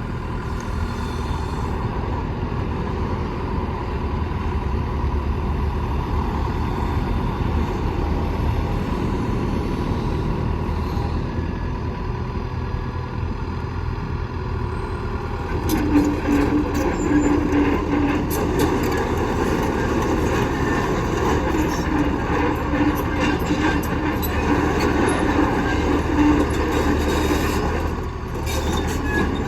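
Deere 160LC excavator's diesel engine running steadily. About halfway through, a steady whine and a rattling clatter join it and go on until just before the end.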